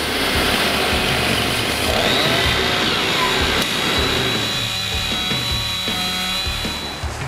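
Background music with a steady beat, with a power saw running over it: a high whine that spins up about two seconds in, holds steady, and cuts off near the end.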